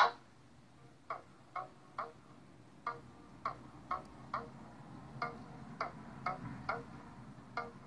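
Short pitched ticks in a repeating rhythm, about two a second in groups of three with a short pause, from a video playing on a computer and picked up off its speaker.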